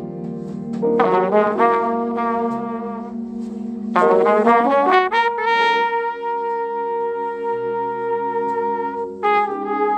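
Jazz trumpet playing a ballad melody over a low accompaniment. Quick rising runs come about a second in and again around four seconds, followed by a long held note and a fresh note near the end.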